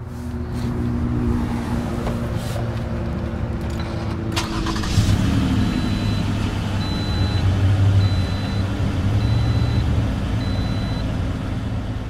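A motor vehicle's engine running steadily, with a few clicks about four seconds in and a short high beep repeating five times, about once a second, in the second half.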